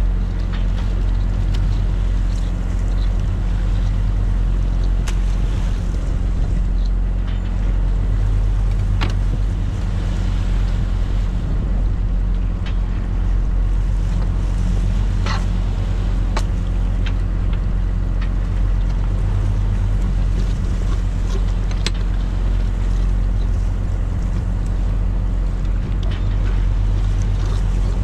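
Boat engine running steadily underway, a constant low drone with water and wind noise over it. Scattered sharp knocks and scrapes come from halibut being handled and cleaned in an aluminium tray.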